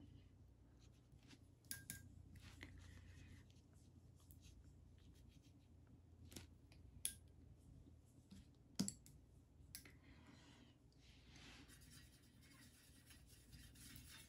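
Faint scratching and rubbing of a fine watercolor brush on paper, with a few small sharp clicks and taps. A soft rubbing rises near the end.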